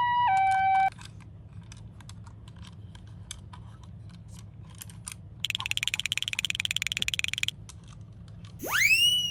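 Toy ambulance minicar's electronic hi-lo siren, alternating between two pitches, cutting off just under a second in, then light clicking and tapping of toys being handled. About five and a half seconds in a rapid buzzing electronic toy tone runs for two seconds, and near the end a loud, quick upward-sweeping electronic whoop.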